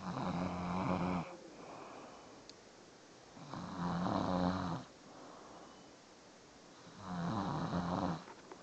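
A sleeping person snoring loudly: three long snores, each a little over a second, about three and a half seconds apart, with quieter sound between them.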